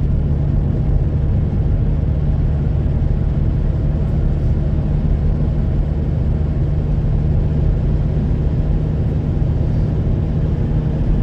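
An engine running steadily at constant speed, a low drone with an even haze of noise above it.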